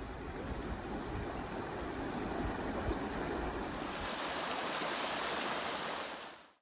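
River water rushing in a steady noise over rocks and current, with a low rumble in the first few seconds; it fades out quickly right at the end.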